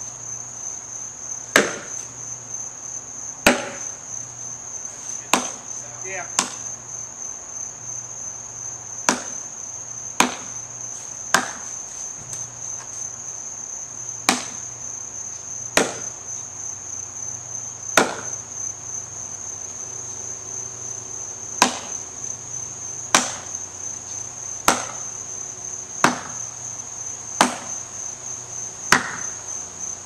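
An axe chopping into a fallen tree limb: about sixteen sharp strikes, one to three seconds apart. A steady high-pitched drone of insects runs underneath.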